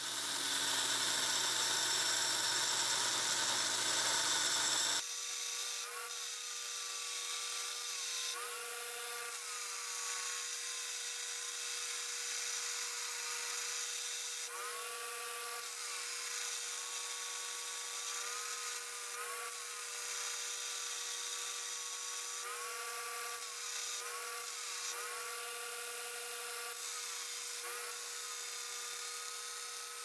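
Belt grinder running while a forged steel knife blade is ground against the belt, giving a steady hum with a grinding hiss. The first few seconds are a louder, denser hiss; after that the machine's whine dips briefly several times.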